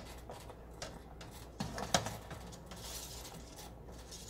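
A spoon stirring thick barbecue sauce in a large stainless steel stockpot, giving a few faint knocks and scrapes against the pot, the strongest about two seconds in.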